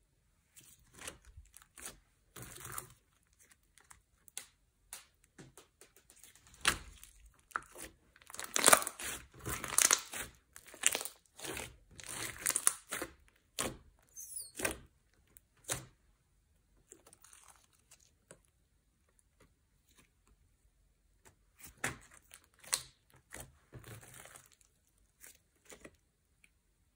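Thick slime mixed with clay and makeup being stretched, pulled and poked by hand, giving many short sticky clicks and pops in irregular clusters. They are densest about a third of the way in, fall almost quiet for a few seconds after the middle, and pick up again near the end.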